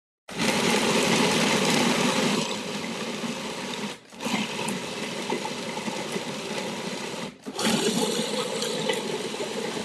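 Food processor running, grinding a thick spiced mixture toward a paste, in three runs with two brief stops, about four and seven and a half seconds in. It is a little quieter after about two seconds.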